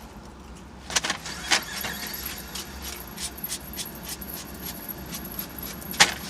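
Open-mouthed chewing with wet lip smacks: a couple of sharp smacks about a second in, quieter smacking after, and one loud smack near the end, over a low steady hum.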